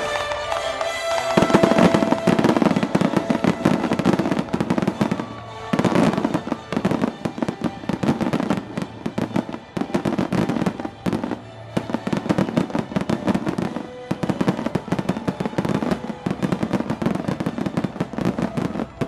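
Fireworks finale barrage: a dense, rapid run of overlapping shell bursts and crackling, with brief lulls about five and eleven seconds in.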